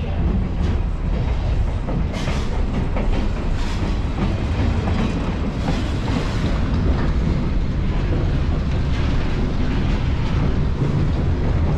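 Passenger railcar rolling along the track: a steady low rumble with occasional rattles and clanks.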